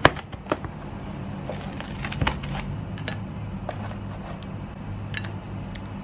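Chef's knife cutting through crisp baked pizza crust onto a plastic cutting board: a series of sharp cracks and taps, the loudest right at the start, over a steady low hum.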